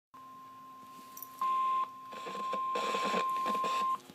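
NOAA Weather Radio warning alarm tone: a single steady 1050 Hz beep lasting nearly four seconds, signalling an emergency alert about to be read. It jumps louder for a moment about a second and a half in, and some noise sits under it in its second half.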